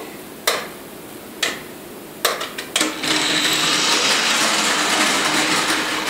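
Toy remote-control car's small electric motor whirring steadily as it drives across a tile floor, starting about three seconds in after a few sharp clicks.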